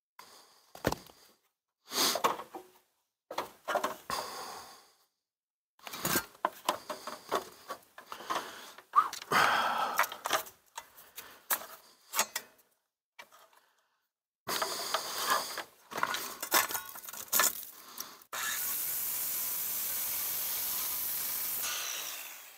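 Irregular knocking and scraping as a circular saw and its cord are handled on an asphalt-shingle roof. About eighteen seconds in, a power saw cuts through the wooden fascia board for about three and a half seconds with a loud, steady sound, then trails off.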